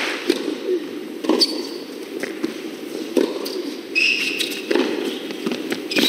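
Tennis rally: a serve and then racket strikes and ball bounces about a second apart, with a few short squeaks of tennis shoes on the court.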